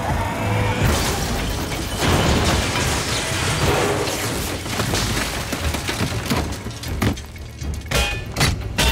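Film action sound effects: a crash of collapsing ceiling, concrete and debris surging about a second in and rumbling on, with a string of sharp impacts near the end.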